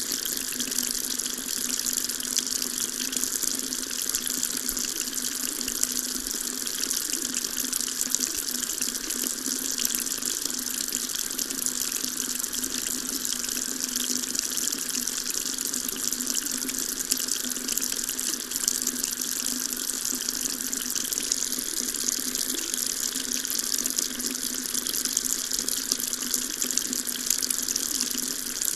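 Water tap running steadily into a sink, an even splashing hiss that does not change.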